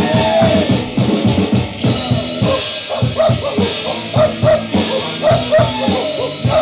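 Instrumental rock music with a drum kit keeping a steady beat under many short, bending high notes.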